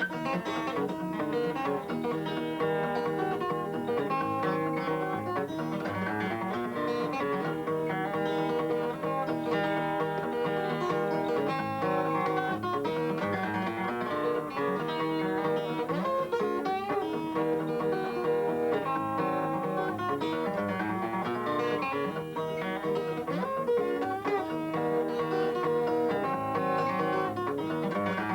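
Guitar played thumbpicking style, a continuous instrumental passage of quick picked notes.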